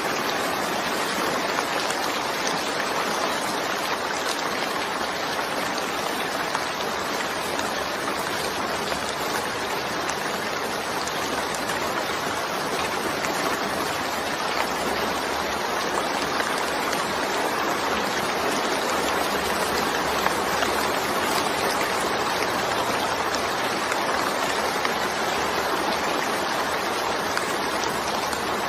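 Steady rain falling, an even unbroken hiss of drops with no change in loudness.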